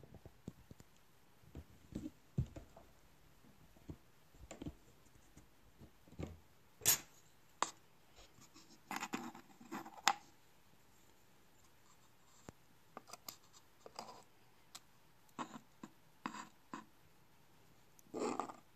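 Metal tweezers clicking and scraping on a wooden board while picking up and nudging desoldered chips and tiny surface-mount parts, in scattered irregular ticks and short scrapes, the sharpest click about seven seconds in.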